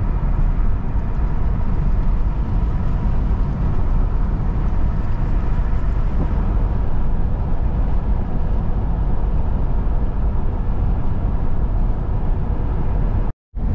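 Camper van driving on a country road: a steady rumble of engine and tyre noise heard from inside the cab. The sound cuts out abruptly for a moment near the end.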